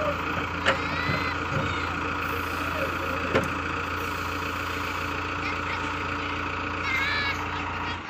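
JCB 3DX backhoe loader's diesel engine running steadily while the backhoe arm is worked, with two sharp knocks early on and a few seconds later.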